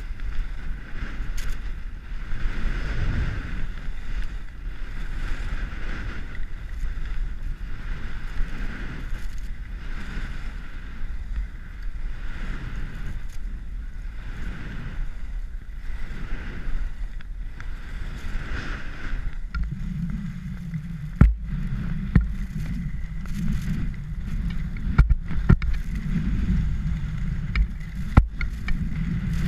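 Skis scraping over groomed snow in rhythmic turns, swelling about every second and a half, with wind rushing over the helmet camera. Partway through it changes to a deeper steady rumble broken by several sharp knocks.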